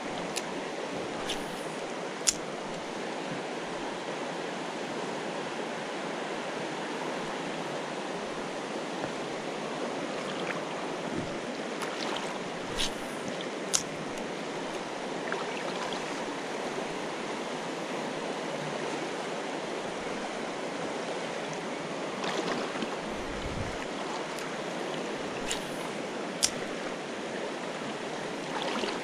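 Steady rush of river water from rapids pouring into a pool, with a few short sharp clicks scattered through it.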